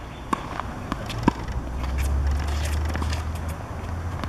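Tennis ball pops from racket strings and bounces on a hard court, a handful of sharp, separate hits, with a low rumble in the middle.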